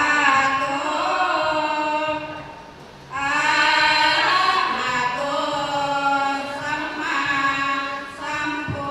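Group of Thai women singing sarabhanya, a Buddhist devotional chant-song, unaccompanied, in long drawn-out melodic phrases. The singing dies away about two and a half seconds in and comes back strongly a little after three seconds.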